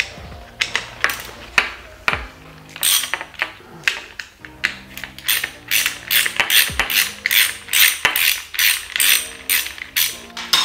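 Hand screwdriver ratcheting as it backs out the screws holding the electric motor to a car window-regulator mechanism: a few clicks at first, then from about three seconds in a regular run of sharp clicks, about two or three a second.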